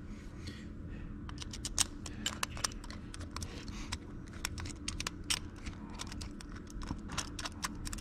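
Irregular light clicks and taps of a screwdriver and small parts as the main jet is fitted and threaded into a snow-blower carburetor body, over a low steady hum.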